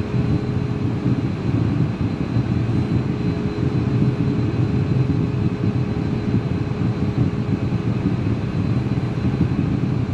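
Steady cockpit rumble of a Cessna Citation M2 taxiing, its two Williams FJ44-1AP-21 turbofan engines running, with a thin steady hum that fades about a second and a half in.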